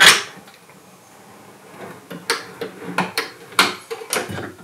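Plywood drawer on metal ball-bearing drawer slides being slid by hand: a loud knock at the very start, then a run of sharp metallic clicks and clacks from the slides and wood about two to four seconds in.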